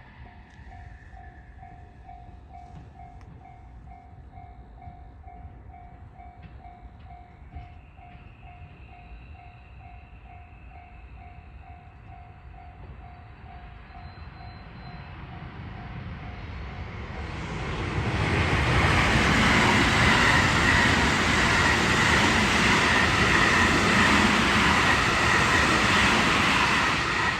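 A level-crossing warning bell rings evenly at about two strokes a second. About two-thirds of the way in, a train draws near and passes close by, loud enough to drown the bell.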